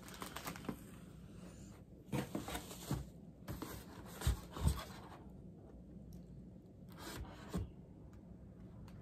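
Cardboard packaging rubbing and scraping as boxed shelves are rummaged through and pulled out of a cardboard shipping box, in short bursts of handling with two soft thumps about halfway through.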